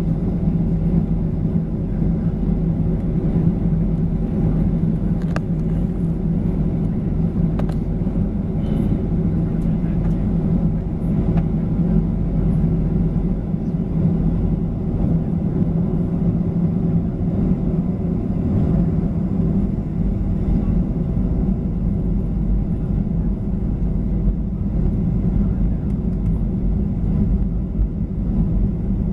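Boeing 737-900ER's CFM56-7B turbofan engines at low power while the airliner taxis, heard inside the cabin as a steady drone with a low hum and a few faint ticks.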